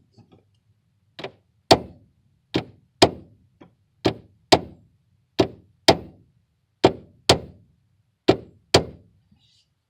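Regular metal hammer tapping on a stuck ignition key, about a dozen sharp taps, mostly in pairs, to jar the ignition lock cylinder free so the key will turn.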